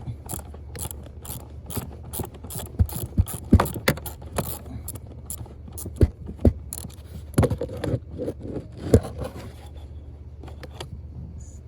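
Ratchet wrench with a small socket clicking in irregular runs as it backs out the screw holding a car's blower motor resistor, over a low steady hum. The clicking thins out near the end.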